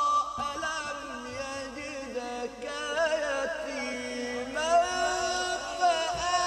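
A male qari reciting the Quran in the melodic, drawn-out style, one voice holding long ornamented notes through a loudspeaker system, with a new rising phrase beginning about two-thirds of the way through.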